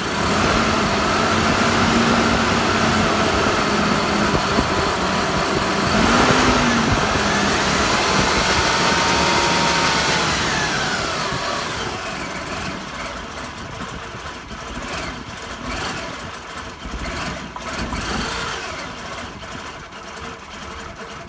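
Toyota 5VZ-FE 3.4-litre V6 running rough after a head gasket replacement. Its pitch rises about six seconds in and drops back after about ten seconds, then the engine sound settles quieter.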